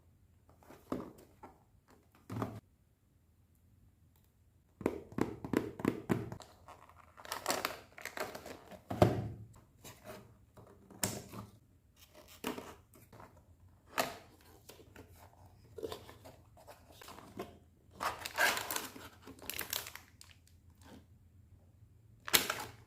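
Packaging being torn open and crinkled by hand: short, irregular bursts of tearing and rustling, sparse at first and frequent from about five seconds in.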